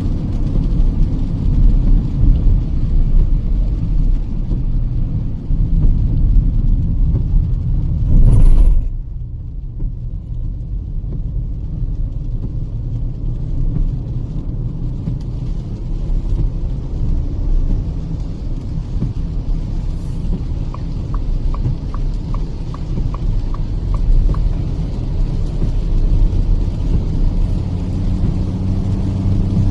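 Kia Seltos petrol car driving on the highway, heard inside the cabin: a steady low rumble of engine and road noise. About eight seconds in there is a brief loud rush, and after it the rumble is quieter. A little past the middle, faint ticking comes at about three a second for a few seconds.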